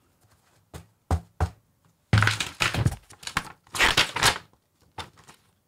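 A few light knocks as hands search inside a hard carrying case, then paper rustling and crinkling for a couple of seconds as a folded instruction sheet is pulled out and handled, with one last click near the end.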